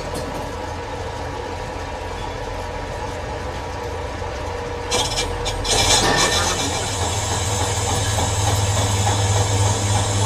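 Lathe running with a steady mechanical hum. About five seconds in, a louder scraping, hissing noise starts and carries on, and the low hum grows stronger.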